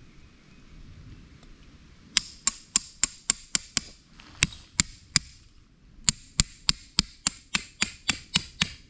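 A hammer striking a metal tent stake, driving it into gravel ground. About twenty sharp, ringing strikes at three or four a second, in three runs with short pauses about four and six seconds in.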